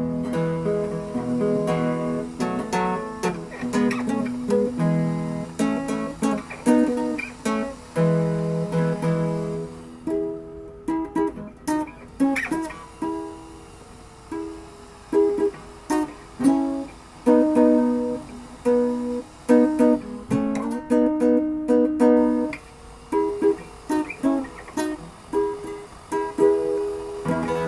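Background music: a plucked acoustic guitar playing a tune note by note.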